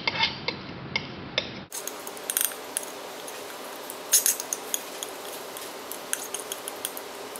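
Metal spatulas scraping and tapping on a glass slab and against each other while working a paste together, with irregular light clicks and scrapes.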